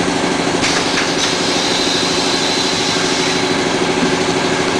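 Electric power sander running steadily, with a brighter abrasive hiss from about half a second in as it works against the plastic mop bucket.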